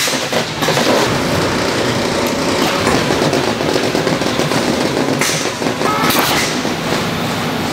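Factory machinery running steadily in a shutter manufacturing shop, a continuous mechanical clatter with a few sharper knocks.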